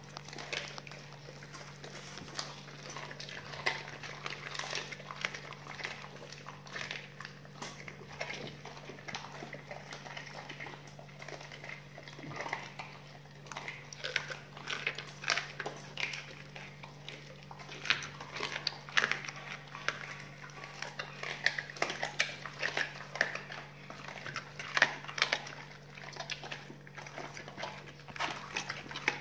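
Two pit bulls chewing raw duck necks, with wet chewing and a quick run of short crunches and cracks as the bones break, over a steady low hum.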